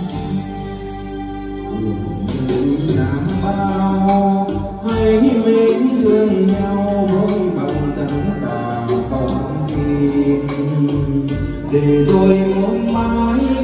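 Vietnamese karaoke song played through a pair of JBL 4012 loudspeakers and a subwoofer: a man sings into a wireless microphone over the backing track. The music gets a little louder about five seconds in.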